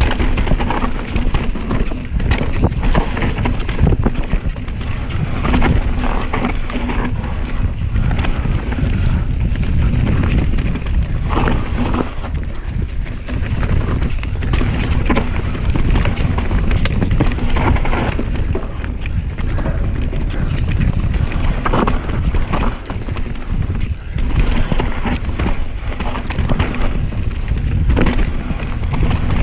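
Enduro mountain bike riding fast down a dirt singletrack: wind rumbling on the camera microphone and tyres on dirt, with frequent knocks and clatters as the bike goes over bumps.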